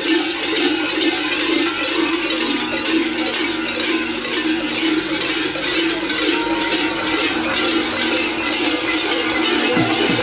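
Bells worn at the belts of sheepskin-clad crai clanking rhythmically, a few strikes a second, as the group walks along.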